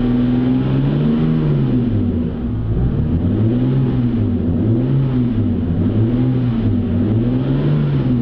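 BMW 328i E90's N52 3.0-litre straight-six running near idle through a muffler and resonator delete, heard from inside the car with the windows up. Its deep exhaust drone swells and sags gently in pitch about once a second.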